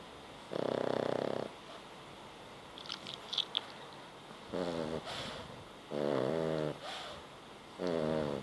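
Snoring: a rattling snore about half a second in, then three shorter snores in the second half with a wavering pitch.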